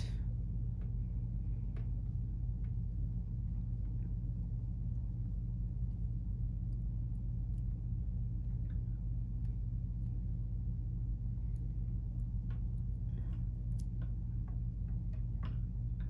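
Steady low room hum, with faint small ticks and rustles scattered through it as thin twisted-pair copper wires from a Cat 5 cable are straightened between the fingers.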